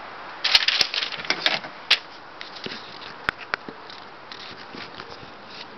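Rustling and clicking handling noises, thickest in a burst from about half a second to two seconds in, then a few scattered clicks. They come from someone getting up and moving close to the camera.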